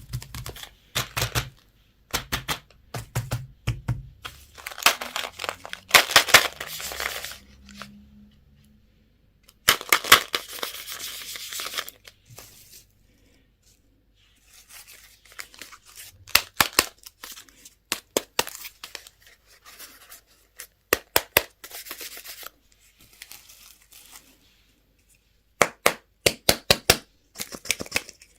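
Candy and surprise-egg wrappers being torn open and crinkled: several long bursts of tearing with many sharp clicks and snaps between them.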